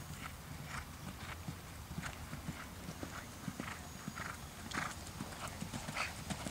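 Hoofbeats of a Thoroughbred mare cantering on a sand arena: a run of soft, irregular thuds a few times a second.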